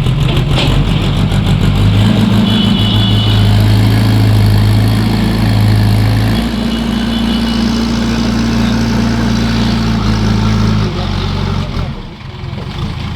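JCB construction machine's diesel engine running, its pitch stepping up about two seconds in and shifting again around six seconds, then dropping back and easing off near the end.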